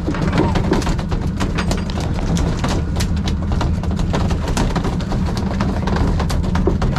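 Boat engine running steadily under a stream of irregular, sharp knocks and clicks.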